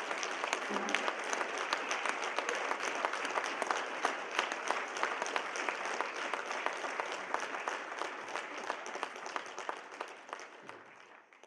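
Audience applauding after a song, many hands clapping. It dies away over the last couple of seconds.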